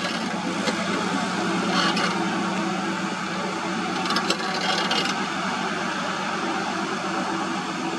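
Loaded SHACMAN F3000 dump truck's Weichai 10-litre inline six-cylinder turbo diesel running steadily as the truck pulls away through loose soil, with a few short rattles and clanks about two seconds in and again around four to five seconds.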